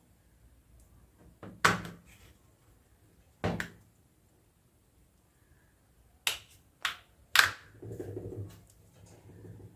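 Sharp plastic clicks and snaps, about five, spaced a second or more apart, then a short spell of scraping: the plastic back panel of a Redmi 4A phone being pried off its clips.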